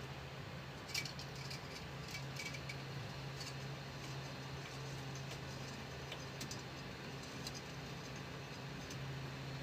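A few light clicks and small rattles, the sharpest about a second in, over a steady low hum.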